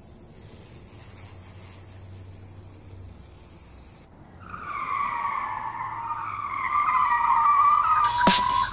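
Small DC electric motors of a homemade battery toy car whining as it runs, coming in about halfway through and growing to a loud steady whine. The first half is only a faint background hum.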